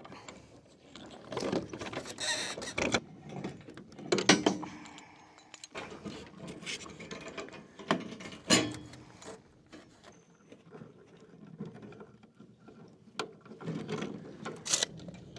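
Steel rebar being tied into place by hand with tie wire: irregular metallic scraping, rattling and rustling of the wire and bar against the plastic rebar chairs, with a few sharp clicks.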